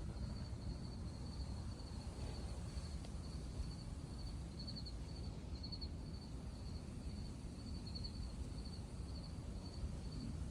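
Outdoor background: a steady low rumble with an insect, cricket-like, chirping in quick high-pitched pulses throughout.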